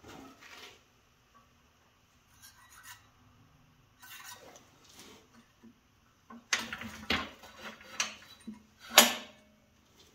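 Steel feeler gauge blade scraping and clinking against the steel upper slider and rollers of a John Deere New Generation float ride seat, worked in and out of the gap to check for about ten thousandths of clearance. Scattered light scrapes at first, then busier, louder scraping from about six and a half seconds in, with the sharpest clink near the end.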